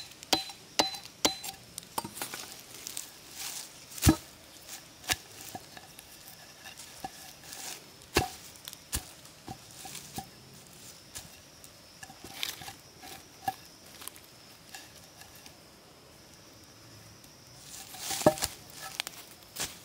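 Machete chopping and knocking into green wood logs: a string of irregular sharp chops, the loudest about four and eight seconds in, then lighter knocks, and a cluster of rustling knocks near the end.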